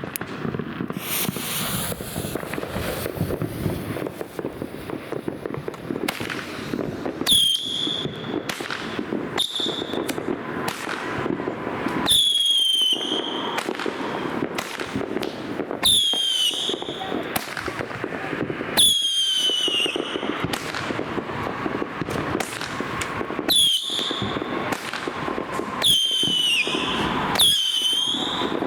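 Blue Hurricane consumer firework burning with a steady crackling hiss. About eight shrill whistles cut through it from the middle onward, each falling in pitch and then holding briefly.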